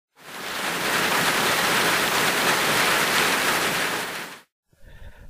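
A steady rushing, hissing noise that fades in quickly and cuts off abruptly after about four seconds.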